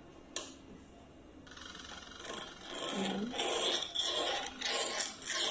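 Scraping and rubbing of a hand tool in irregular strokes, starting about a second and a half in and growing louder, after a single click near the start.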